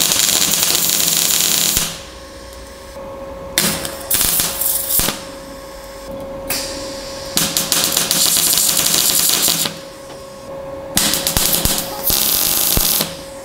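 MIG welder arc crackling as a steel hinge plate is welded into thin sheet metal: four bursts of one to two seconds with short pauses between, over a steady hum.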